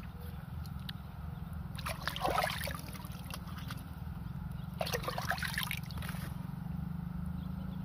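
Water splashing and trickling twice, about two seconds in and about five seconds in, as hands rinse fish in a bamboo basket standing in shallow water, over a steady low background rumble.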